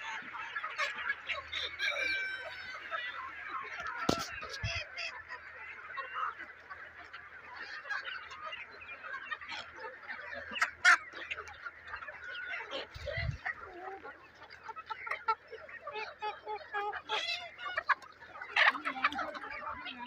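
A large flock of chickens clucking and calling continuously, many birds overlapping, with a few louder sharp calls standing out.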